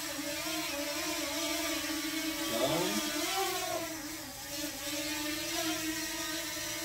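DJI Mini 2 quadcopter's propellers whining in hover, the pitch wavering as the motors keep adjusting. A brief rising sweep comes about two and a half seconds in.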